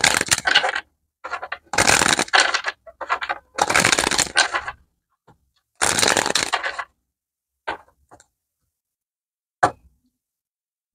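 A deck of tarot cards being shuffled in several rustling bursts of up to about a second each. Near the end come three short, sharp clicks.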